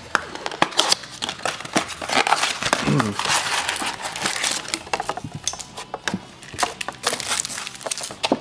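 Cardboard trading-card blaster box being torn open and the foil card packs inside handled: a run of irregular crackling, crinkling and tearing, busiest in the middle.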